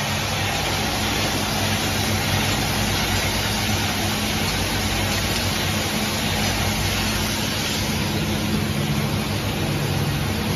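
Automatic cork cap assembly machine running: a steady mechanical hum with an even hiss over it.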